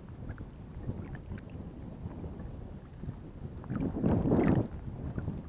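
Wind on the microphone over water lapping, with a louder slosh of water about four seconds in.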